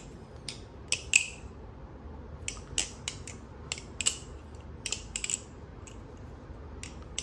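Falcon balisong being flipped: its handles and blade clack metal on metal in sharp, irregularly spaced clicks, about a dozen of them, some in quick pairs and triples.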